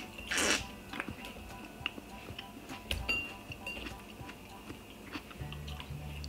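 A loud wet slurp about half a second in as a ripe tomato's juice is sucked out, then small mouth clicks of chewing, over quiet background music.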